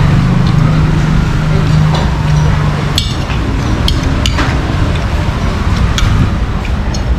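Metal spoon and fork clinking and scraping on a ceramic plate, with a handful of sharp clinks spread through the second half. Under them is steady background noise, with a low hum that stops about three seconds in.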